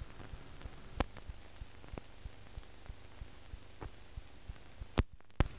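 Hiss and scattered crackling clicks of an old newsreel film soundtrack with no speech, and a sharp click about a second in. Near the end come two loud pops either side of a brief dropout, where the film is cut to the next shot.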